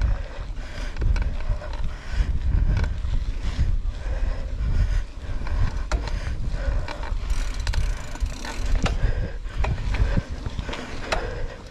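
Mountain bike ridden along a dirt singletrack: a steady low rumble from the tyres on the trail, with the chain and bike rattling and giving sharp clicks over the bumps.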